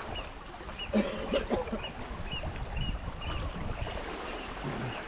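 Sea water washing along the shore. A faint regular squeak repeats about twice a second, and a short low voice-like sound comes about a second in.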